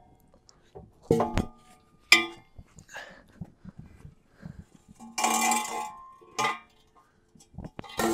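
A detached car exhaust pipe and muffler clanking and scraping on concrete: a few metal knocks with a short ring, and a longer scrape about five seconds in.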